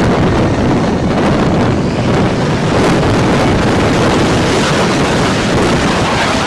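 Loud, steady jet noise from an F-35B's F135 turbofan at high power for a short takeoff roll, mixed with wind buffeting the microphone.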